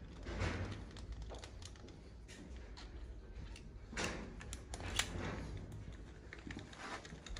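Irregular metal clicks and scrapes of gloved hands handling a compression-tester adapter in a glow-plug hole of a diesel engine's cylinder head, the sharpest knocks about four and five seconds in.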